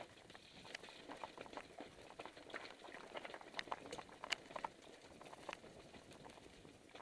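Bicycle running downhill over a loose, stony track: tyres crunching on gravel and the frame rattling, heard as a stream of small irregular clicks and knocks, with a sharper knock about four seconds in.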